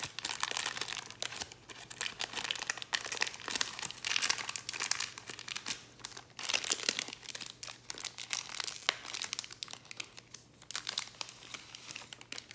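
A trading-card pack's wrapper being torn open and crinkled by hand, a run of irregular crackles that thins out near the end.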